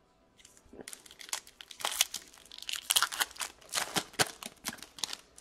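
Wrapper of an Upper Deck Artifacts hockey card pack being torn open and crinkled by hand: a dense run of sharp crackles starting about half a second in.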